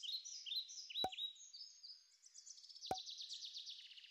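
Faint songbird chirping: a run of short, high falling notes that turns into a quick trill. Two sharp mouse-click sounds come about a second in and near three seconds.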